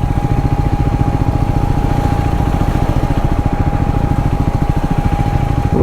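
Triumph Scrambler 400X single-cylinder engine idling steadily, its firing pulses beating evenly, with a steady thin whine above it.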